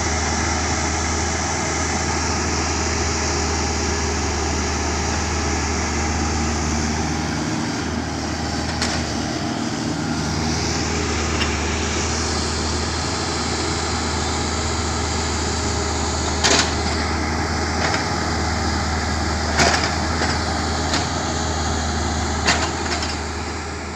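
Mini Kubota excavator's diesel engine running steadily under work, with a few sharp knocks from the arm or bucket in the second half.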